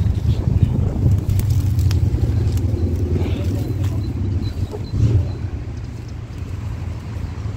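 A steady low rumble with a few faint clicks and knocks over it.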